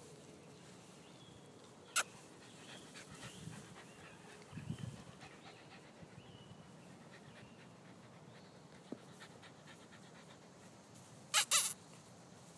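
Rottweiler puppies playing on grass. Mostly a faint, quiet background, with a short low puppy sound about five seconds in, a sharp click about two seconds in and two quick sharp knocks near the end, which are the loudest moments.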